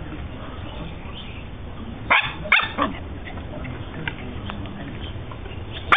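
A dog barking during play: two short, sharp barks about two seconds in and another right at the end, with a few fainter sounds between.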